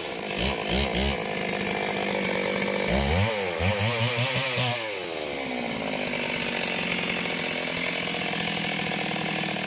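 Mini chainsaw engine revving in quick throttle blips, then holding a steady high speed from about five seconds in.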